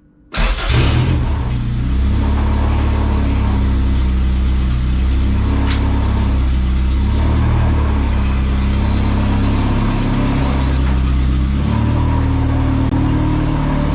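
Car engine running loud, its revs stepping up and down.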